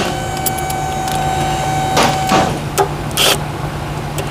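A shop machine running with a steady hum and a held tone, the tone dropping out about two and a half seconds in, while a few short sharp knocks and scrapes of tools sound over it.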